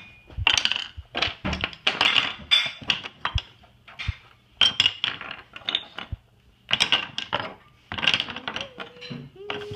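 Wooden toy tools knocking and clattering as they are dropped and fitted one by one into a wooden toy toolbox, in irregular bursts of hard clicks and knocks.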